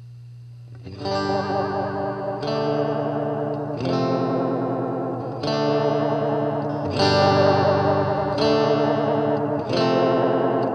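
Electric guitar (Squier Bullet Stratocaster into a Fender Super Champ XD) played through an EarthQuaker Devices Space Spiral modulated delay pedal. After about a second of low hum, chords are struck about every second and a half, and their pitch-wobbling, slightly grainy repeats ring on under each new chord.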